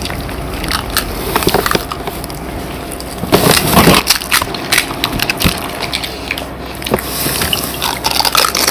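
Crisp, hollow fuchka (pani puri) shells being cracked open with the fingers and crunched while eating, close to the microphone. There are many sharp crackles, with a louder burst of crunching about three and a half seconds in.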